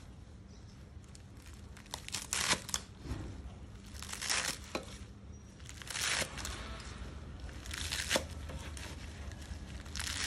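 A knife chopping through a bunch of crisp leafy green stems on a wooden chopping board: short groups of crunchy cuts ending in knocks on the board, about every two seconds.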